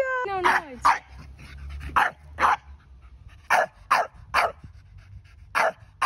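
Staffordshire bull terrier barking in short, sharp barks, mostly in pairs about half a second apart, about eight in all.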